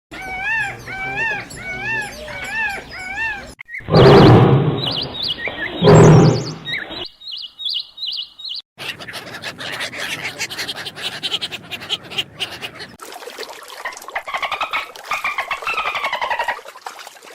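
A succession of different animal calls. It opens with a bird's chirp, repeated about twice a second and rising and falling in pitch, then two loud harsh calls about two seconds apart, then a long run of rapid clicks with whistle-like tones gliding up and down near the end.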